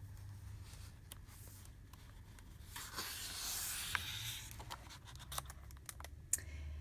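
A picture-book page being turned, a paper rustle about three seconds in, with small clicks and handling knocks before and after.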